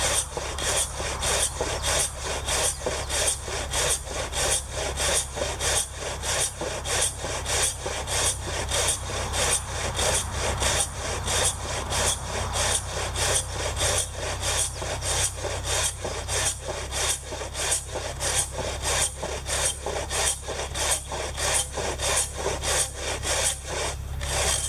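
A maebiki oga, a large Japanese rip saw, ripping along the grain of an oak beam by hand in steady, even strokes, about two a second.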